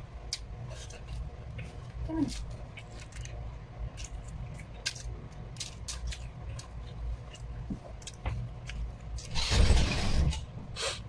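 Eating sounds: chewing and scattered mouth clicks as rice and fried pork are eaten by hand, over a steady low hum. A louder burst of noise lasts about a second near the end.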